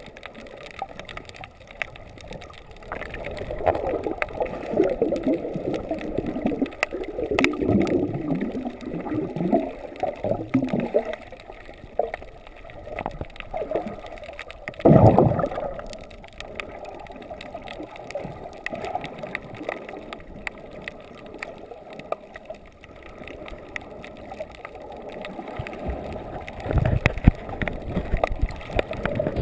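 Muffled underwater gurgling and bubbling around a camera moving through the water, with a louder rush of water about halfway through.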